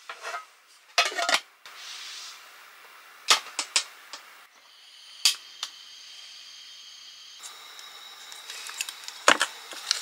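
Kitchen handling sounds: several sharp clinks and knocks of metal cookware, a stretch of steady high-pitched hum, then plastic crinkling and scissors snipping open a plastic pouch, with a loud snip near the end.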